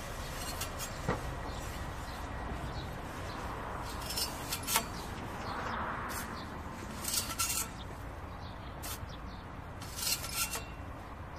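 Hand-held metal tube seedling transplanter being jabbed through plastic mulch into soil: scattered sharp metallic clicks and rubbing, some in quick pairs, over a steady low background noise.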